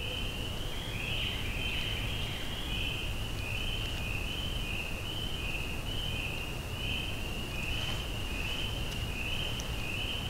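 Evening chorus of small calling animals in the woods: a steady high-pitched trill that pulses about one and a half times a second, over faint low background noise.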